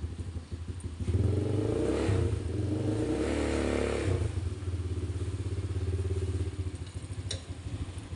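200cc ATV engine idling, then revved: it climbs about a second in, rises and falls again around the middle, holds a higher steady speed for a few seconds, and drops back toward idle near the end.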